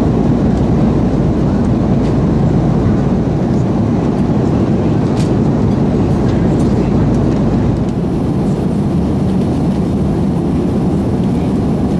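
Airbus A330-200 cabin noise heard from a window seat: a steady, loud, low rumble of the jet engines and airflow, dipping slightly about eight seconds in.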